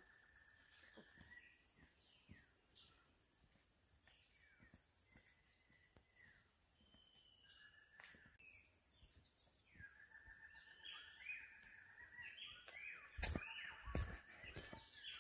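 Faint tropical forest ambience: many birds calling with short chirps and down-slurred whistles over a steady high insect drone. A couple of thumps about two seconds before the end.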